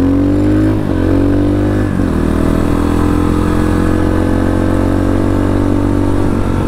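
Mini motorcycle's single-cylinder four-stroke engine accelerating under way. Its pitch climbs and is cut twice in quick succession, about one and two seconds in, by upshifts. It then holds a steady cruising drone.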